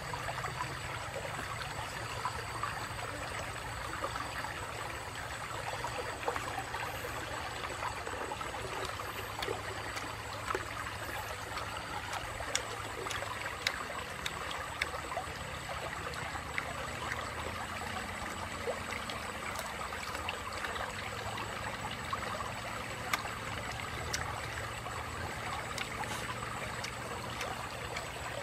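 Shallow stream running over a stony bed, a steady rushing babble of water, with scattered small clicks over it.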